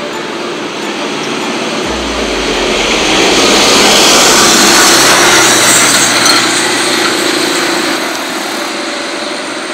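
A vehicle passing close by on the road, its engine and tyre noise growing louder to a peak about halfway through and then fading away.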